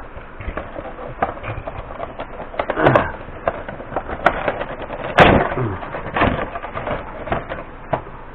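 Cardboard Funko Pop box being handled and turned over in the hands: scattered taps, clicks and scrapes of cardboard and plastic, with louder scraping about three and five seconds in.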